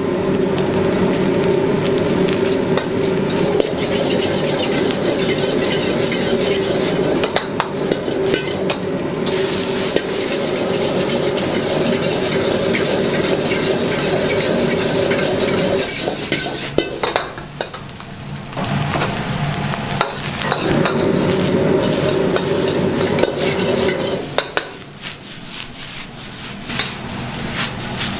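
Egg fried rice sizzling in a black steel wok over a high gas flame, the metal wok ladle scraping and knocking against the wok as the rice is stirred and tossed. The noise eases off briefly past the middle and again near the end.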